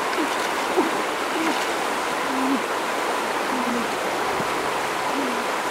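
Shallow stream running steadily over rocks, with a brief splash of hands in the water about two-thirds of the way in.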